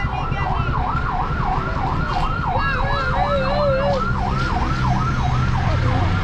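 A siren yelping, its pitch sweeping up and down about two and a half times a second over steady traffic noise. A second, lower warbling siren tone sounds briefly about halfway through.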